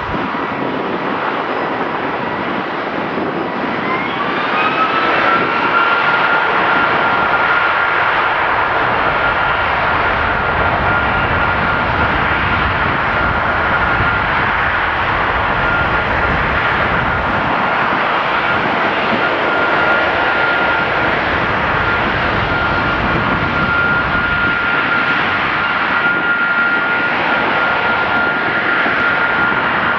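Boeing 757-200 freighter's jet engine running during a ground engine test. About four seconds in it spools up with a rising whine, then holds a steady whine over a broad roar.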